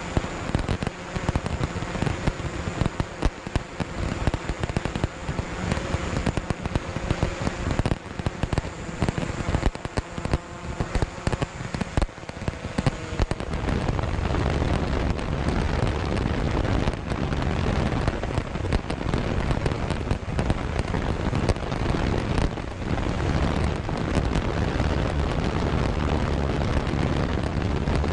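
Fireworks display: shells bursting and crackling in a dense, continuous barrage of pops and booms, the low booms growing heavier about halfway through.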